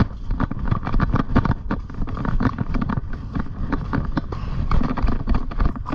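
A pony being ridden, heard through a GoPro carried by the rider: hoofbeats and tack knock irregularly over a continuous low rumble of movement and wind on the microphone.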